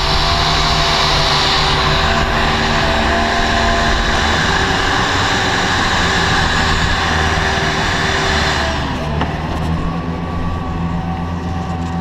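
Bee vacuum running with a steady loud hiss and motor whine, then switched off about nine seconds in, the motor winding down with a falling whine. A steady low engine hum carries on underneath.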